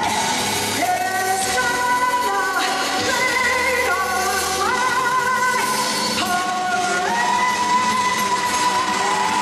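Woman singing a show tune live with an orchestra, holding long notes that step up in pitch from one to the next.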